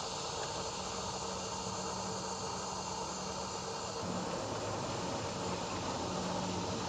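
Steady outdoor background hiss, with a faint low hum that wavers and drops out now and then.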